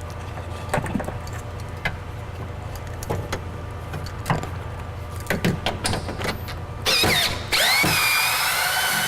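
Small clicks and knocks of hands working inside a car door, unplugging the power window motor's electrical connector, over a steady low hum. About seven seconds in comes a loud, noisy whine of a couple of seconds whose pitch slides down and levels off.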